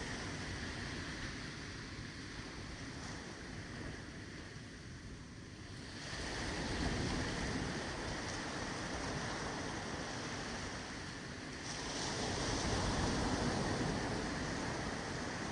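Ocean surf on a beach: a steady wash of waves, with one wave breaking louder about six seconds in and another about twelve seconds in.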